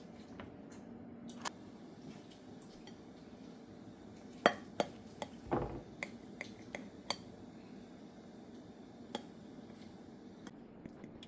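Scattered light clinks and taps of cutlery against a dish, most of them bunched together in the middle.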